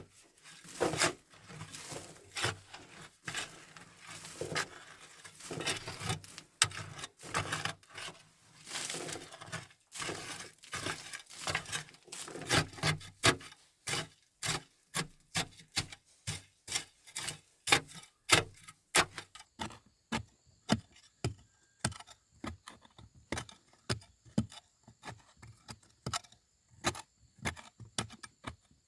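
Wood being worked by hand: rustling and scraping, then from about halfway a steady run of sharp strikes, one or two a second.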